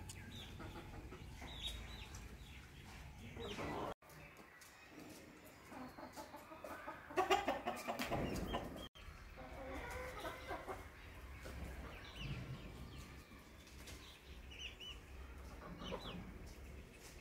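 Domestic chickens clucking while they peck, with short high calls throughout and a louder run of calls about seven seconds in.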